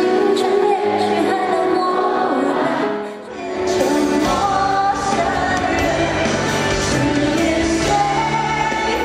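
A woman singing a Mandarin pop ballad into a microphone with band accompaniment. The music dips briefly about three seconds in, then carries on.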